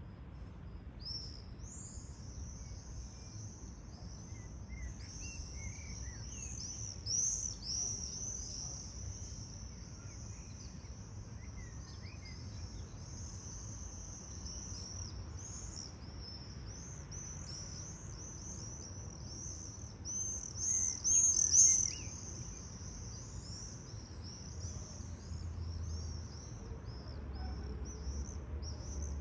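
Many small birds chirping and calling in a continuous high-pitched chatter, with louder bursts about seven seconds in and again around twenty to twenty-two seconds in, as if birds pass close. A faint low rumble runs underneath.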